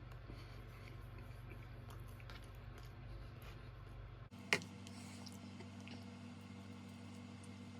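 Faint chewing of a tortilla taco over a steady low hum, with a single short click about four and a half seconds in.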